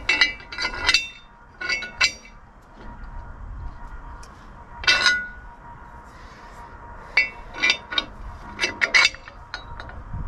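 Steel bolt hardware and a square-tube steel caster leg clinking and knocking against a perforated steel fixture-table top: a string of about a dozen separate sharp metallic clinks, some ringing briefly.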